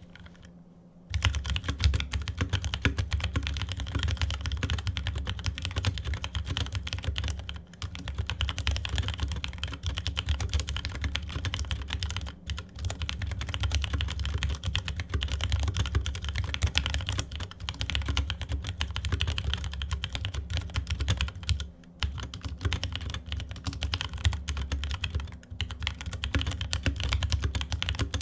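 Fast, continuous typing on a Leopold FC660M mechanical keyboard with stock Cherry MX Brown tactile switches. It starts about a second in and stops briefly a few times. The owner thinks it sounds alright but that its stock stabilizers could use work.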